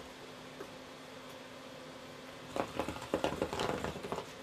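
A cat pawing at a round wooden hole-topped toy box with a Cheerble light-up ball rolling inside: a burst of knocks and rattles about two and a half seconds in, lasting about a second and a half.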